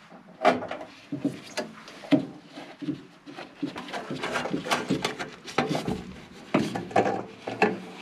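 Irregular clicks, knocks and rubbing from gloved hands working inside a gas furnace's burner compartment, handling wires and sheet-metal parts as the hot-surface igniter is fitted back in place. The sharpest knocks come about half a second in, near two seconds, and several near the end.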